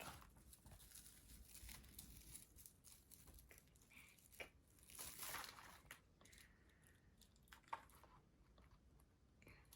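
Faint rustling and crinkling of gift packaging being handled, with a few light clicks; the loudest rustle comes about five seconds in.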